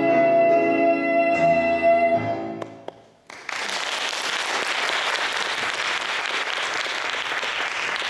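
A girl's solo voice holds the final note over grand piano chords, dying away about three seconds in. After a brief silence, audience applause starts and carries on steadily.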